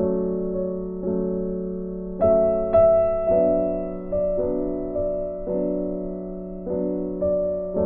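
Background piano music: soft chords struck about once a second, each fading before the next.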